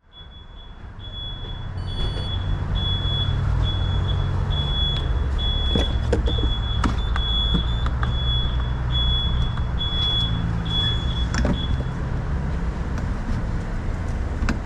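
Steady low rumble of a vehicle with a regular high-pitched electronic beep repeating about one and a half times a second, which stops about twelve seconds in. A few sharp clicks are heard around the middle and again before the beeping ends.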